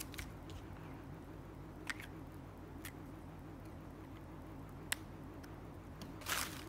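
A few light, isolated clicks and taps of hard clear plastic as a small plastic case is handled, with a brief crinkling rustle of bubble wrap near the end.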